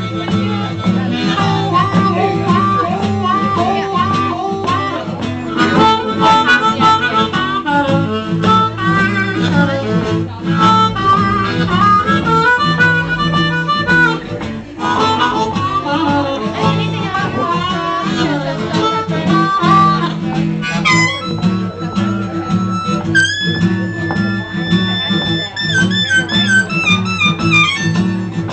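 Blues harmonica solo played into a microphone over steady acoustic guitar strumming. The harmonica plays short bent phrases, then holds long notes from about two-thirds of the way in, wavering at the end.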